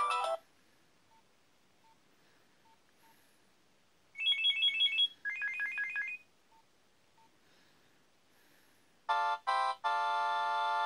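Preloaded ringtones from a Nokia 6230i mobile phone, played through its built-in speaker. One tune cuts off at the start, with a few faint single blips in the gap. About four seconds in, a short tone plays as two runs of quick high beeps, the second run lower. About nine seconds in, a new polyphonic ringtone starts with two short stabs and then plays on.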